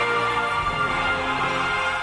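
Music only: a theme tune of long, held notes, with no voices.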